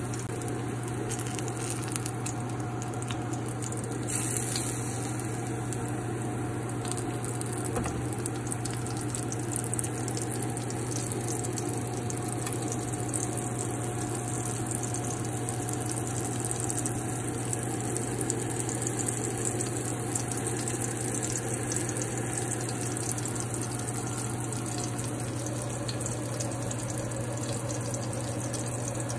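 Hot oil sizzling steadily around an ahi tuna steak searing in a pan, with fine crackles and pops.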